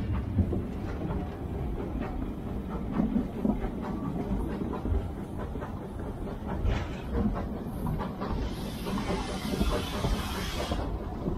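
Narrow-gauge saddle-tank steam locomotive and its carriages running past, a low rumble with wheels clicking over the rails. About eight seconds in a loud hiss of steam starts and cuts off sharply near the end.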